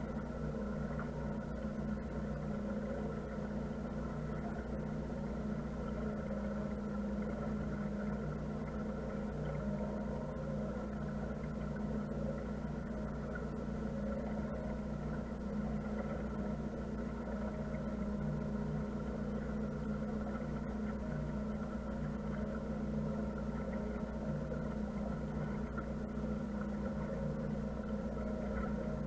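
A motor cruiser's engine runs at a steady low cruising speed, giving an even, unchanging drone.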